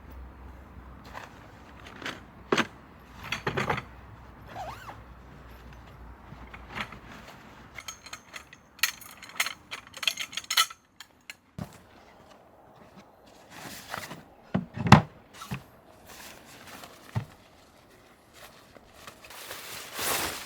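Scattered knocks, clicks and rustles of camping gear being handled while a DD tarp is pitched, with several sharper thuds.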